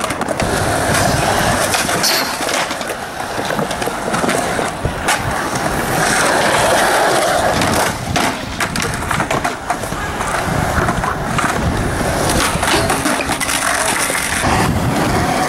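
Skateboard wheels rolling on smooth concrete, a continuous rough rumble, with sharp clacks of the board hitting the ground during flip-trick attempts.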